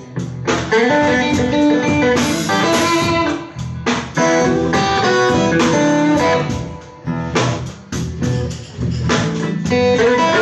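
Live blues band playing, with guitar lines to the fore; the music dips briefly twice between phrases.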